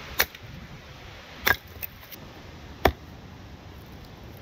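Three sharp knocks, about a second and a half apart, with a couple of faint ticks after the second, over a steady hiss.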